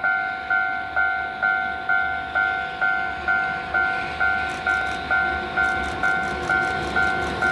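Japanese railway level-crossing warning bell ringing, an electronic ding repeating about twice a second with each strike fading before the next, signalling an approaching train.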